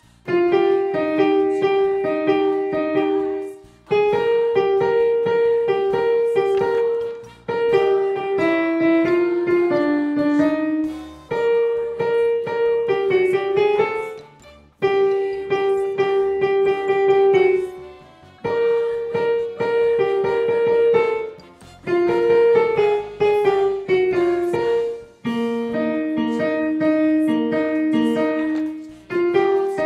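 Piano picking out a choir alto line in the middle register, often two notes at once. It plays in phrases of about three seconds, each followed by a brief pause.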